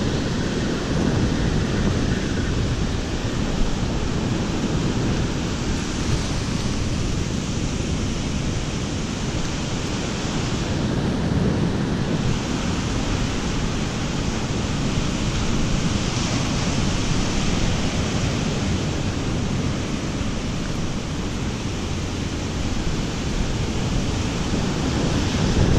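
Ocean surf washing onto a sandy beach, a steady rushing noise, with wind buffeting the microphone.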